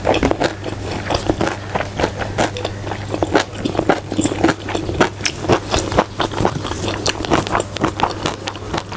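Close-miked mouth noises of a person chewing a mouthful of rice and vegetables: a dense, irregular run of wet smacks and clicks, over a steady low hum.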